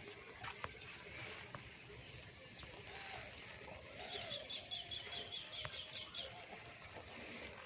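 Small birds chirping, with a quick run of repeated high chirps about four seconds in. A sharp click comes less than a second in.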